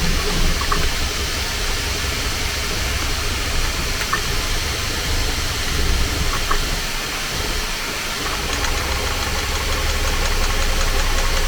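Bambu Lab A1 Mini 3D printer running through its start-up sequence: steady fan hiss over a low motor hum, which drops away briefly about seven seconds in.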